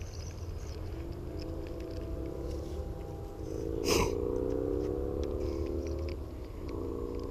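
Spinning reel being cranked, its gears giving a whirring hum that drifts a little in pitch with the cranking speed and stops and starts again near the end. A single sharp click about halfway through.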